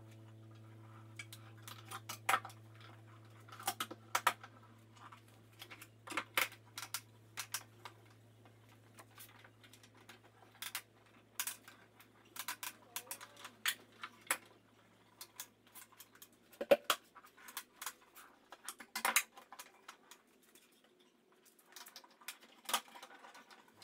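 Bar clamps being adjusted and tightened on a glued-up dovetail box: scattered sharp metallic clicks and knocks at an irregular pace. A steady low hum fades away over the first two-thirds.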